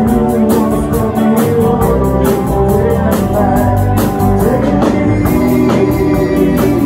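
Live rock band playing: electric guitars over a drum kit with a steady beat.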